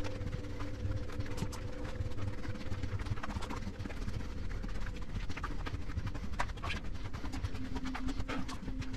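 Footsteps of people running along a concrete tunnel floor: quick, irregular footfalls with low rumbling handling noise, over a steady low hum.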